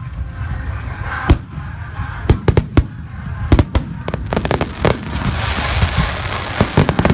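Starmine fireworks barrage: aerial shells bursting in quick clusters of sharp bangs, with a steady hiss filling in among the bangs from about five seconds in.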